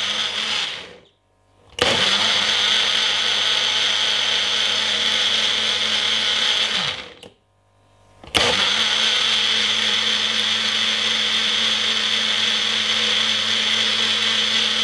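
Personal bullet-style blender running, blending a watery cucumber, ginger and lemon drink in pulses: it stops about a second in, starts again abruptly and runs for about five seconds, stops, then starts again abruptly about eight seconds in and keeps running.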